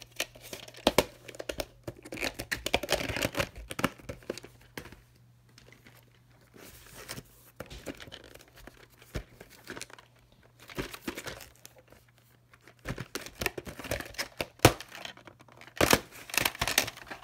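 Plastic clamshell VHS cases and cassettes being handled: sharp clicks and knocks of hard plastic with rustling, in clusters near the start and again near the end.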